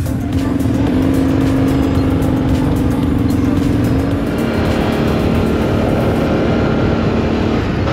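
Quad bike engine running at steady revs, its pitch rising slightly and then dropping about four seconds in, with crackling noise in the first part.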